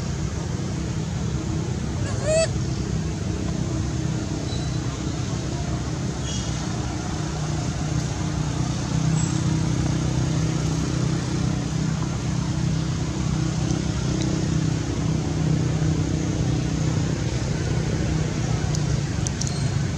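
Steady low motor drone with a few held low tones, like an idling engine, and a short rising squeak about two seconds in.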